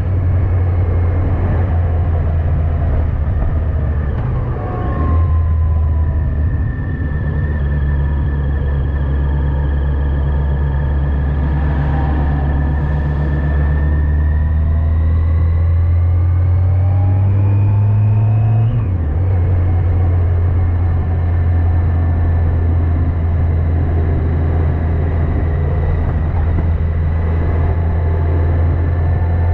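Yamaha FJR1300AE motorcycle's inline-four engine running on the road. The note breaks briefly about five and seven seconds in, climbs steadily in pitch past the middle, drops sharply a little after halfway, then holds steady.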